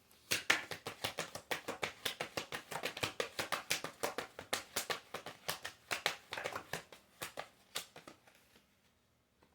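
A tarot deck being shuffled by hand: a rapid run of card clicks and slaps that thins out and stops about eight seconds in.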